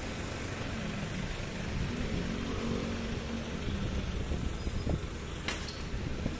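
Street traffic: a large road vehicle's engine rumbling past, with a brief high-pitched squeal about four and a half seconds in and a sharp click about a second later.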